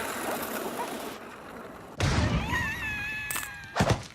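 Cartoon sound effects: a hissing rush, then a sudden thud about two seconds in, a high wavering squeal, and sharp knocks near the end.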